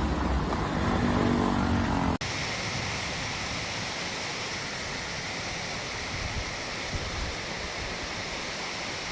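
Floodwater rushing, a steady even roar of water. It follows a sudden cut about two seconds in from a noisier passage with a faint low hum.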